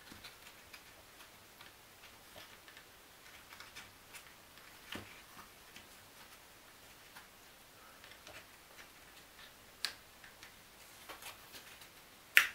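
Faint, irregular clicks and taps of thin laser-cut wooden pieces being handled and pressed into the slots of a wooden model, with one sharper click near the end.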